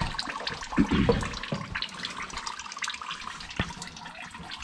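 Automatic transmission fluid trickling and dripping from the open bottom of the transmission, with a few light knocks and a sharp click about three and a half seconds in.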